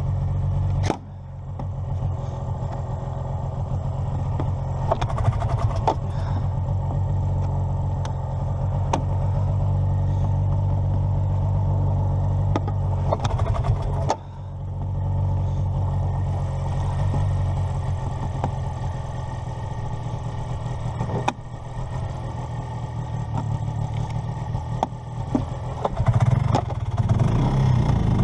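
An engine running steadily at a low, even speed, with brief sharp drops in level about a second in and again about fourteen seconds in.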